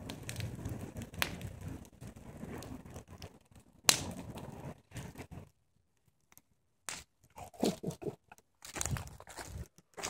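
Bonfire of dry brush crackling and popping over a low rumble of flame, with one sharp pop about four seconds in. The sound nearly drops out for a second and a half past the middle, then comes back as uneven bursts of crackling and crunching.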